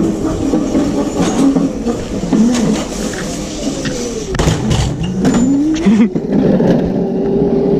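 Razor Crazy Cart electric drift kart driving fast over a concrete floor, its motor whining and the wheels rumbling. Near the middle the whine drops in pitch and climbs again as the kart slows and speeds up, with a few knocks. Near the end the whine holds steady.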